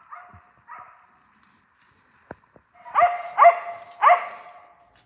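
Bear-hunting dog barking at a bear up a tree: a few faint barks in the first second, then three loud barks about half a second apart.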